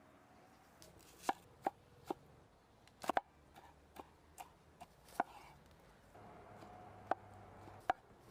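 About ten sharp, irregular knocks of kitchen preparation: a hard tool striking a hard surface, some strokes in quick pairs, each ringing briefly.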